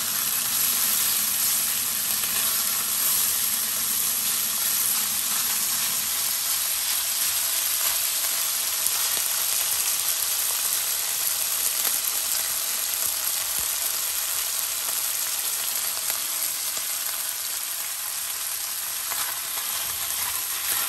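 Thin-sliced beef sizzling steadily in oil in a hot stainless wok, seared undisturbed on one side. Near the end a spatula scrapes under the meat and turns it over.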